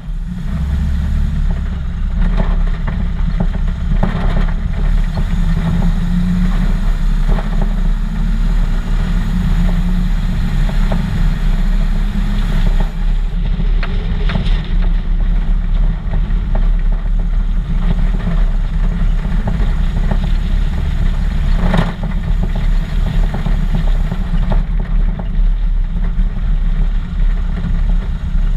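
1941 Chevy custom truck's engine running steadily, its sound sitting low, with a few short knocks scattered through.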